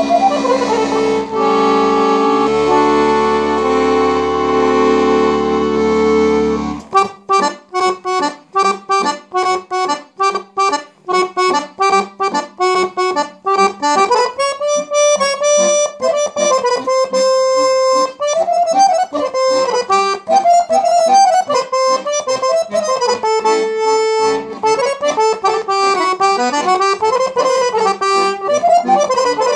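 Piano accordion (Guerrini) playing a Vlach folk tune. It opens with held chords over bass notes; about seven seconds in, the bass drops out and the right hand plays fast, detached runs that settle into a flowing melody.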